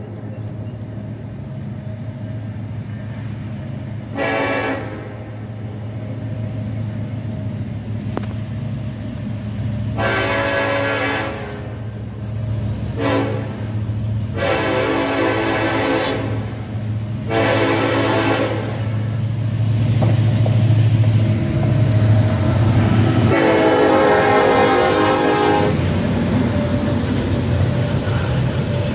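Diesel locomotive approaching and sounding its multi-note air horn in a series of blasts, some long and some short, the last the longest and loudest, about 23 seconds in. Under the horn runs the low, steady rumble of the locomotive's engine, growing louder as it nears.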